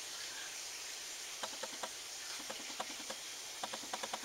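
Agitated squirrel giving short, irregular clicking alarm chirps, starting about a second and a half in, over a faint steady hiss.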